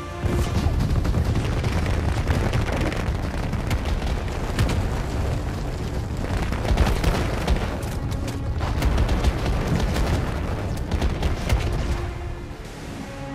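Film sound effects of a rocket strike on a crowd: a dense, rapid string of blasts and impacts over a deep rumble, easing off near the end.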